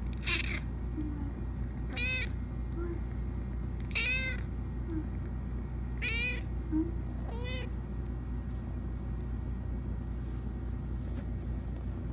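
A tabby kitten meowing five times, roughly every two seconds, each call high-pitched and rising then falling in pitch, then falling quiet for the last few seconds. A steady low hum runs underneath.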